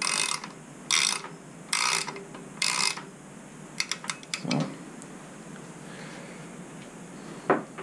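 Ratchet wrench clicking in short runs about once a second as the handlebar stem clamp bolts are snugged only hand-tight. Then a few quick clicks and two dull knocks, one in the middle and one near the end.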